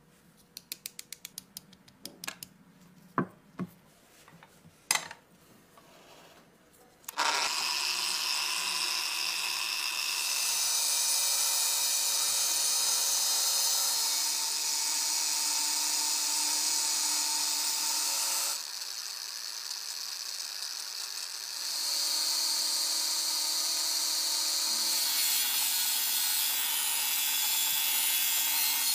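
A series of small metal clicks and taps as metal gun parts are handled. About seven seconds in, an electric angle grinder fitted with a wire cup brush starts and runs with a steady whine as it brushes a metal part. It drops quieter for a few seconds about two-thirds of the way through, then picks up again.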